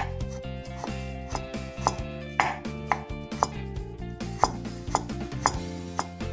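Kitchen knife mincing fresh ginger on a bamboo cutting board: a sharp chop roughly every half second, over steady background music.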